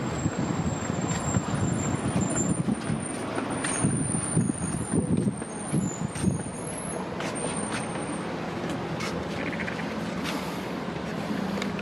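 Outdoor road-traffic noise with wind buffeting the microphone for the first half, settling into a steadier vehicle hum about halfway through.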